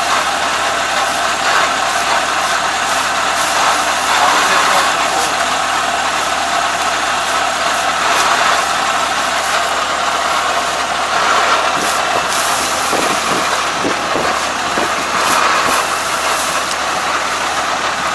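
ARN460 combine harvester's engine idling steadily.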